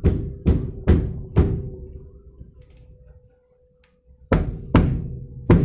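Background music with a heavy drum beat and sustained notes; the beat drops out for a moment in the middle and comes back near the end.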